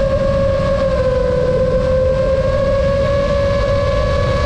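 FPV drone's motors and propellers whining at a steady pitch that dips slightly and then rises back, over a low rushing rumble.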